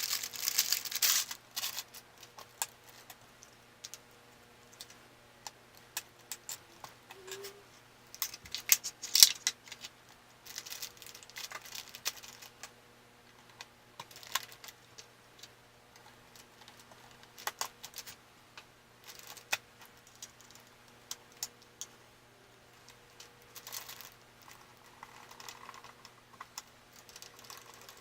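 Irregular small clicks, taps and rustles of computer parts and their packaging being handled and fitted together, over a faint steady low hum.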